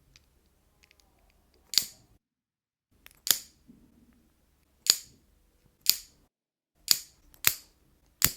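A lighter being struck again and again: seven sharp clicks at uneven spacing, each with a short tail, as someone tries to light it.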